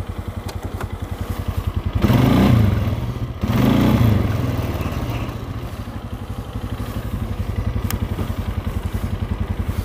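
Polaris Sportsman ATV engine idling with a steady pulsing beat, blipped up in revs twice, about two and three and a half seconds in, each time rising and falling back to idle.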